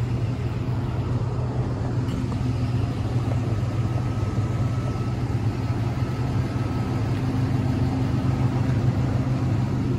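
A vehicle engine idling, a steady low rumble, with a faint high whine for a few seconds in the middle.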